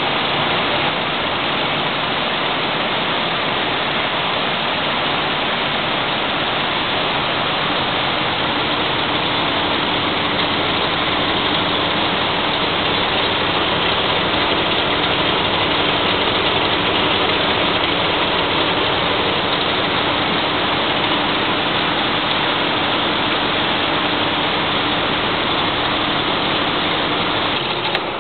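Wire-production machinery running in a wire factory: a loud, steady, dense mechanical din, with a faint steady hum joining about a third of the way in.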